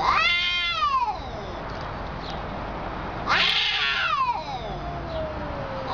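Two cats yowling at each other in a territorial standoff before a fight: a long drawn-out yowl right at the start, and another about three seconds in that starts harsh and slides down in pitch.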